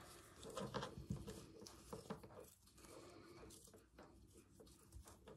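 Faint handling sounds of ribbon being tied in a knot onto a threaded cotton reel: soft rustling with scattered small clicks.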